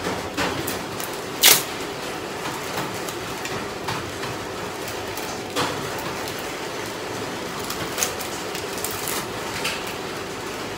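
Crinkles and small clicks of a thin plastic wrapper being peeled off a slice of cheese, the sharpest snap about a second and a half in, over a steady background hiss.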